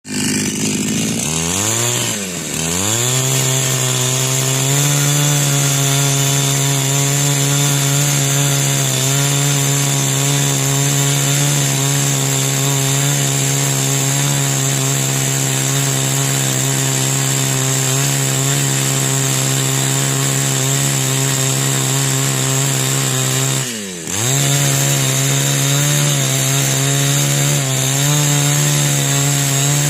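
Two-stroke chainsaw with an 18-inch bar running at high revs at a steady pitch. Its pitch drops sharply and climbs back twice, about two seconds in and again near the end.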